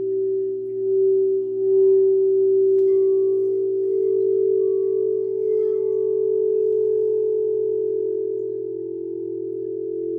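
Singing bowl sounding a sustained, steady tone that swells in loudness over the first two seconds and then holds, wavering slowly near the end. There is a light tick about three seconds in.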